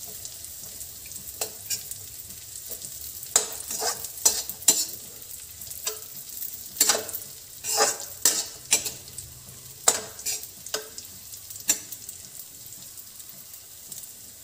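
Raisins frying in ghee in a metal kadai: a steady sizzle, broken by irregular clinks and scrapes of a metal spoon stirring against the pan.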